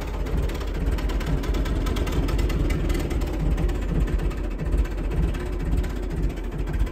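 Petrol engine of a David Brown RAF aircraft tug tractor running steadily at idle.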